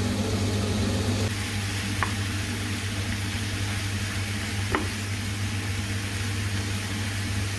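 Turnip greens and garlic sizzling in hot olive oil in a pan over medium heat, an even hiss, with a steady low hum underneath and two light clicks about two and five seconds in.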